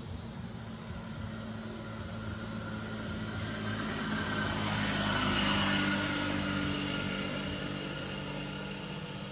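Engine of a passing vehicle, a steady hum that swells to its loudest a little past halfway and then fades away.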